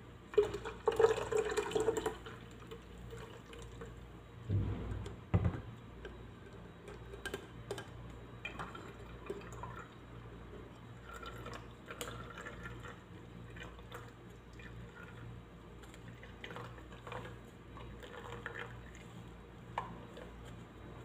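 Blended lemon-mint juice poured from a blender jar into a fine metal mesh sieve over a glass pitcher, splashing loudly for about a second and a half near the start; a couple of dull knocks follow a few seconds later. Then a spoon scrapes and taps against the mesh sieve as the pulp is worked and the juice drips through.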